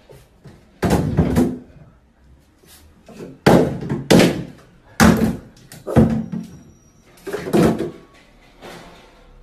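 Plastic shampoo and lotion bottles knocked off a bathtub ledge by a small dog and landing in the empty tub: a run of about six loud, sudden thuds and clatters, a couple of them in quick pairs.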